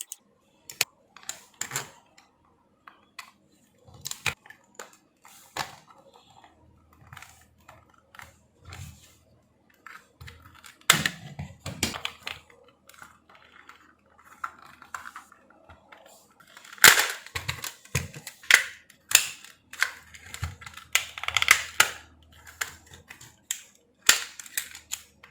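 Sony DualShock 4 controller (CUH-ZCT2E) being taken apart by hand: its small screws are removed and the plastic shell halves are pried and snapped apart, giving scattered clicks, ticks and sharp plastic snaps of uneven loudness.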